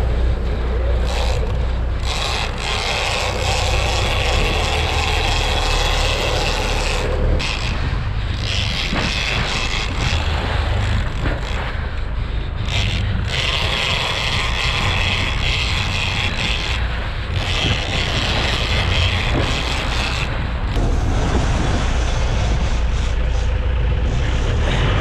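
Steady low rumble of a Bertram sportfishing boat's engines under way, with the wake rushing and hissing past the stern.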